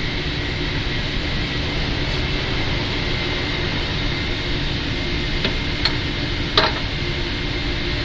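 Steady rushing noise with faint steady tones, and three sharp clicks a little past the middle, the loudest near the end of them, from hand work fitting a car horn.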